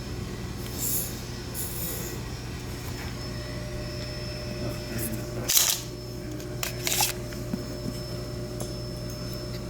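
Light handling noise of the pistol: a short rub about five and a half seconds in, then a couple of sharp clicks about a second later, over a steady electrical hum.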